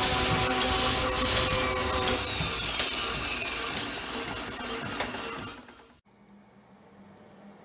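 A motor-driven machine running with a steady high whine and a hum, then shutting off suddenly about five and a half seconds in, leaving a faint low hum.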